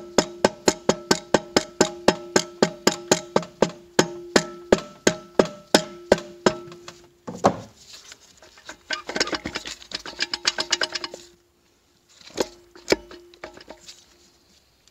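Plastic hammer tapping a planetary carrier down into a TH350 transmission case, rapid light taps about four to five a second, each leaving a ringing metal tone, for about seven seconds. Then a knock and a short burst of metallic rattling as the carrier is worked by hand, with a few single knocks near the end.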